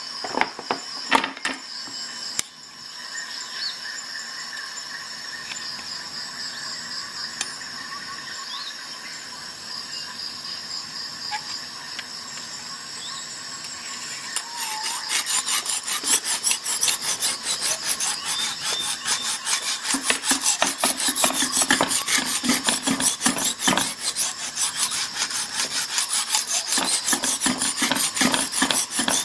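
Lansky sharpening hone rasping in rapid back-and-forth strokes along a clamped steel knife edge, starting about halfway in; before that, only a few clicks of handling the clamp and a quiet background.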